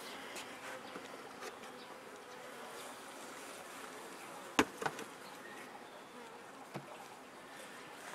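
Honeybees buzzing around an opened hive: a steady hum of many bees, with two sharp knocks close together about four and a half seconds in.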